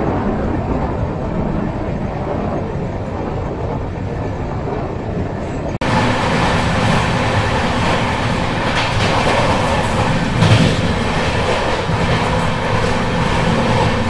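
Passenger train running at speed, a steady rumble with wheels clattering over the rails. About six seconds in the sound changes abruptly and becomes fuller and brighter. A louder knock comes about ten and a half seconds in.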